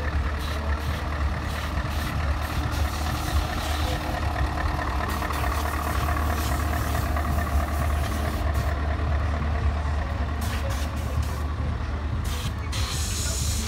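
Heavy truck engine running steadily with a deep drone, and a short hiss about a second before the end.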